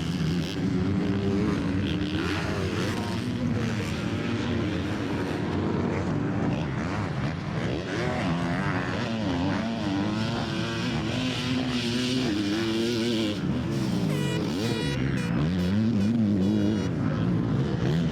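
Several motocross race bikes running on the track together, engines revving up and down as the riders shift and work the throttle, overlapping and changing pitch without a break.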